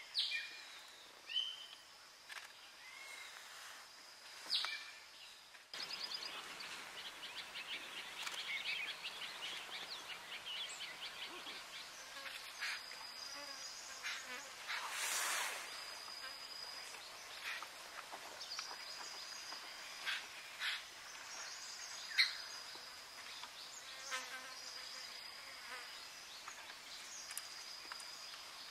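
Forest ambience of insects buzzing and chirring, with a high steady whine that comes and goes. A few sharp chips or clicks stand out, the loudest about twenty-two seconds in, and there is a brief louder rush of noise about fifteen seconds in.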